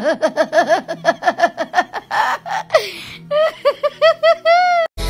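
A woman laughing hard in rapid high-pitched bursts, with a breathy gasp midway. It ends in a longer squeal that cuts off abruptly.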